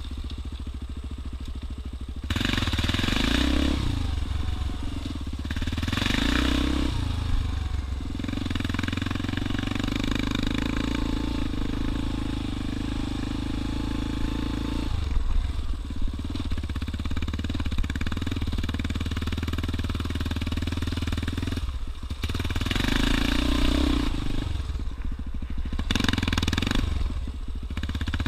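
Yamaha Raptor 350 ATV's single-cylinder four-stroke engine running while being ridden, the throttle opened and eased off several times. There is a steadier stretch of even running in the middle.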